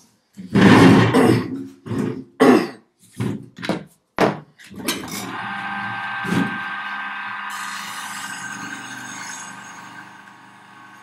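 About eight short, loud, harsh strokes in the first few seconds, each broken off by abrupt silence. Then a bench grinder's electric motor runs with a steady hum and whine that grows gradually fainter.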